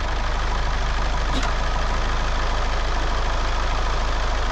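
Compact loader tractor's engine running steadily at low speed with a constant low drone, as the tractor eases straight back.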